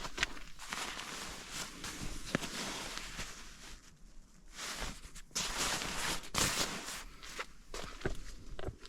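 Footsteps and rustling handling noise, in two long spells with scattered sharp clicks, as a camp tarp is handled and pitched.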